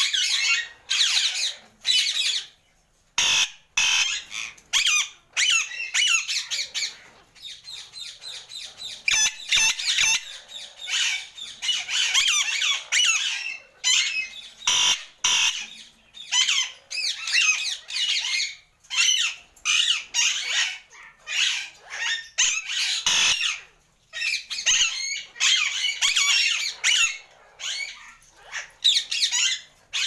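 Two ringneck parrots calling with shrill squawks and rapid chatter. The calls come in runs of a second or two with short breaks, almost throughout.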